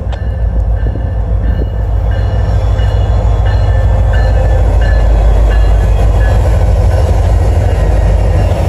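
Two CSX EMD GP40-series diesel locomotives (GP40-3 #6519 leading, GP40-2 #6481 trailing), their turbocharged 16-cylinder engines running with a heavy low rumble, passing close by at the head of a freight train, with wheels clattering on the rails. The noise builds over the first couple of seconds as the lead unit draws level, and a faint high squeal comes and goes midway.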